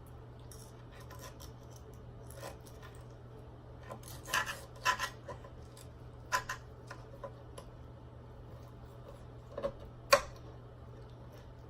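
Irregular clicks, taps and scrapes of eating: utensils working at food on a plate, with a cluster of louder clicks about four to five seconds in and a sharp click near the end. A faint steady hum runs underneath.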